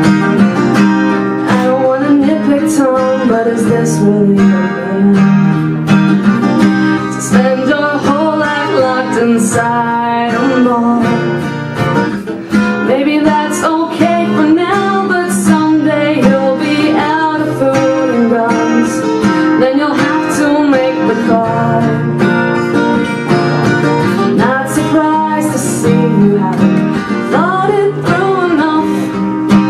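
A woman singing live to her own strummed acoustic guitar.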